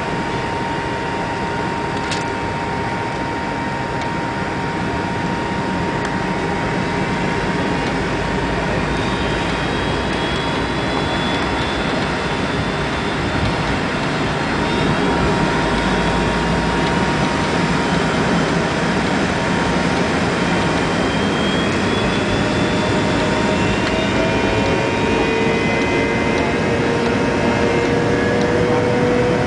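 McDonnell Douglas MD-80 airliner's jet engines running with a steady rushing noise and a steady high whine, growing a little louder about halfway through, with a rising tone near the end.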